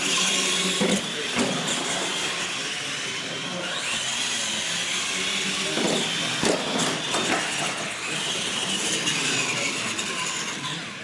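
Radio-controlled monster trucks racing on concrete: their electric motors and drivetrains whine, rising and falling with the throttle. Several knocks and clatters come as the trucks land off the jump ramps, a pair about a second in and more around six to seven seconds in.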